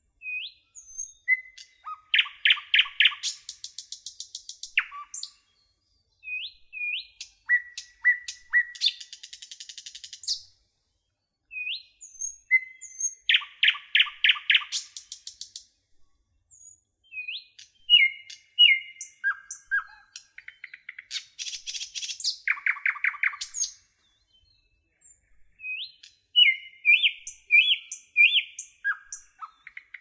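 Songbird calling in bursts: short upward chirps, fast rattling trills and buzzy scolding notes, with brief silent pauses between the bursts.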